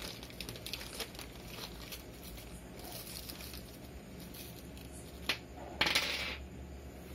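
Small clear plastic accessory bag crinkling as it is handled and opened, with light clicks of small parts falling out onto the table. A sharp tick comes about five seconds in, then a short, louder rustle.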